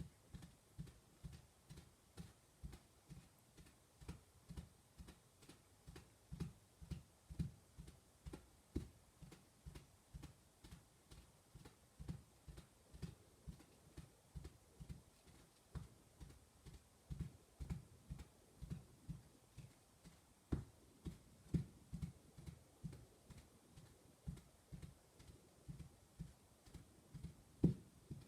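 Horse's hooves galloping through choppy mud: a steady rhythm of dull, low thuds, about two a second, with one louder hit near the end.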